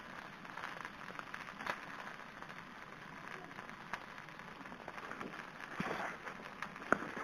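Beaten egg cooking on banana leaves in an oiled wok, a faint steady sizzle, while a spoon stirs it with light scraping and clicking over the leaves. There are a couple of sharper clicks about seven seconds in.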